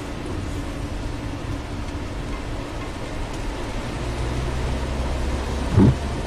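Road and tyre noise inside the cabin of a 2012 Toyota Camry Hybrid driving on a wet road: a steady low rumble with a hiss over it, growing a little heavier about four seconds in. A short, loud low thump comes just before the end.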